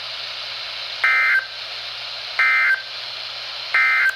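Emergency Alert System end-of-message signal: three short bursts of SAME digital data tones, about 1.3 s apart, over a steady hiss of radio static. It marks the close of the tornado warning broadcast.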